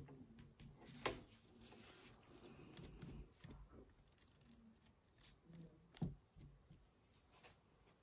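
Faint soft dabbing and rustling of a crumpled tissue pressed onto wet watercolour paper, with two sharper taps about one second and six seconds in.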